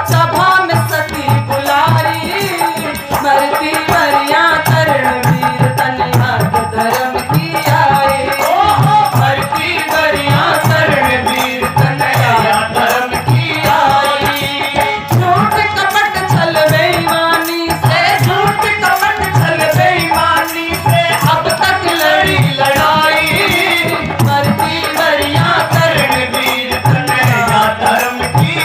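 Hindi devotional bhajan performed live: a woman's singing voice and a man's voice over harmonium, with a dholak drum keeping a steady beat.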